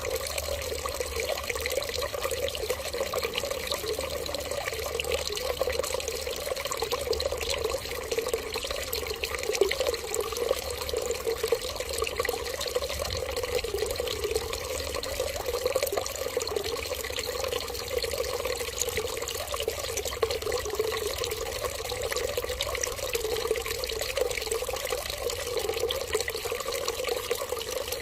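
Running water trickling steadily in one continuous, unbroken flow.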